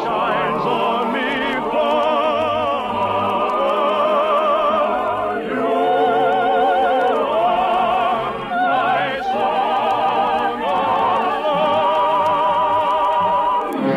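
Operatic singing with wide vibrato, long held notes over an orchestral accompaniment, heard through the narrow, muffled sound of an early-1950s radio recording.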